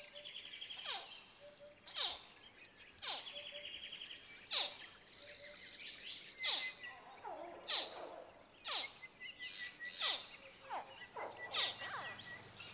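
Wildlife calls: a series of sharp falling chirps, roughly one a second, over a high trilling.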